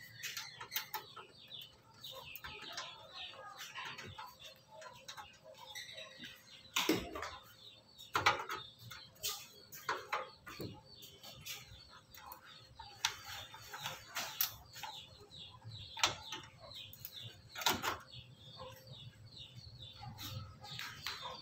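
Irregular sharp clicks and knocks from handling parts and cables inside an open desktop computer case, over faint bird chirping in the background.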